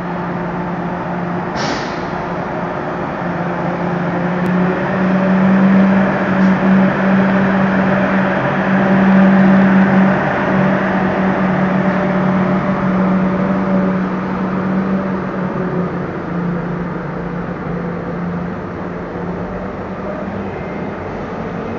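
TGV Atlantique high-speed trainset pulling slowly out of the station: a steady electric hum and running rumble, louder as the power car goes by, then easing as the carriages follow. A brief high hiss about two seconds in.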